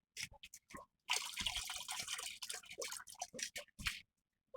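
Guava-leaf juice being poured into water, trickling and splashing unevenly, with a short break in the first second and stopping shortly before the end.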